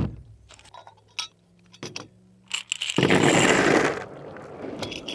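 Small hard objects clicking and clinking, then a loud rattling clatter lasting about a second, starting about three seconds in.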